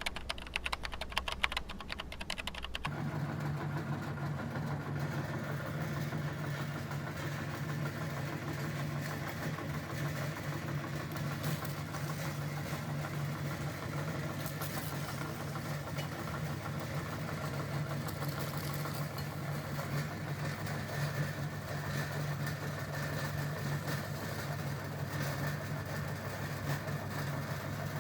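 Meat grinder motor running with a steady hum, after a rapid clattering during the first three seconds or so.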